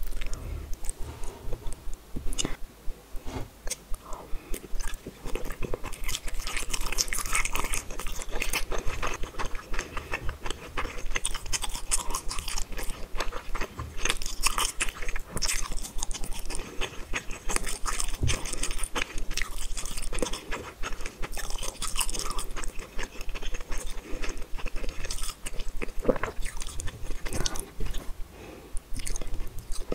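Close-miked chewing of a mouthful of spicy tteokbokki rice cakes and fish balls: a steady run of small, sticky mouth clicks.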